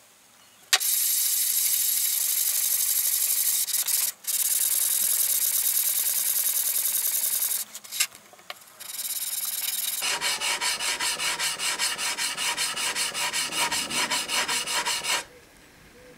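A steel plane blade, forged from a truck leaf spring, rubbed back and forth on abrasive paper laid on a flat board: a steady gritty scraping for the first half, broken by short pauses about four and eight seconds in. It then turns into quicker, even strokes at about five a second, which stop a second before the end.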